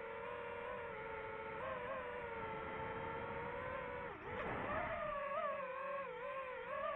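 FPV quadcopter's motors and propellers whining as it flies, the pitch wavering with throttle. About four seconds in the pitch drops sharply, then climbs back up as the throttle is opened again.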